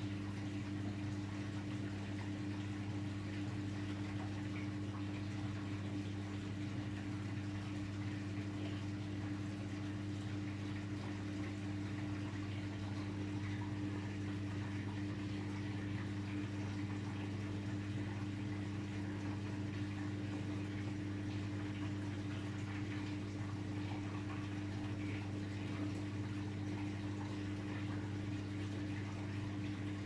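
Daewoo DWD-FT1013 front-loading washing machine draining at the end of its 95°C cotton drum-cleaning cycle. The drain pump gives a steady low hum over the sound of water running and trickling out of the drum.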